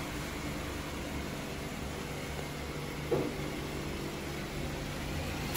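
Steady low hum of a car engine idling, with a short higher note about three seconds in.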